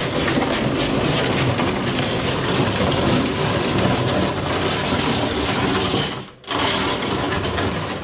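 A portable basketball hoop being moved across a driveway on its base: a loud, continuous rough rumbling scrape that stops briefly about six seconds in, then starts again.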